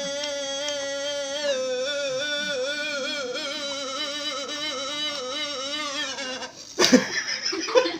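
A warbling melodic tone, wavering up and down in pitch, that stops about six and a half seconds in. A sharp knock follows near seven seconds, then a jumble of short sounds.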